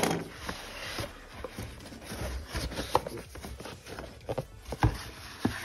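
A boxed action figure being handled: irregular taps, knocks and rustles of cardboard and plastic packaging, with a sharper knock about three seconds in and another near five seconds.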